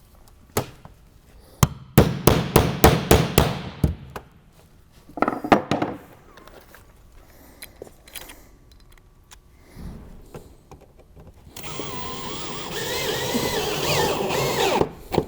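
A hammer striking sheet metal: a quick run of about eight blows, a few more shortly after, then a few seconds of rasping metal scraping near the end.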